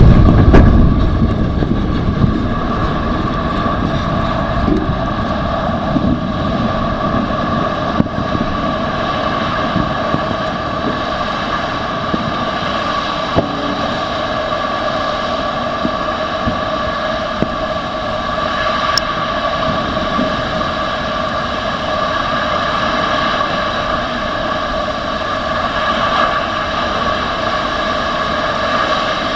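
The tail of the Antares rocket's explosion blast fading over the first couple of seconds, then the steady roar of the burning wreckage and propellant fire on the launch pad, with a few steady tones running through the noise and occasional faint cracks of falling debris.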